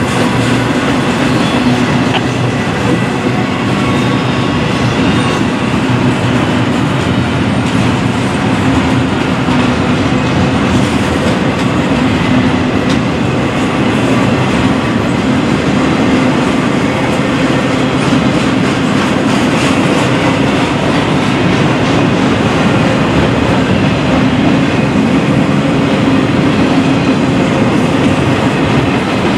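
Norfolk Southern double-stack intermodal train's container well cars rolling past at close range: steel wheels running on the rails in a steady, loud, unbroken noise.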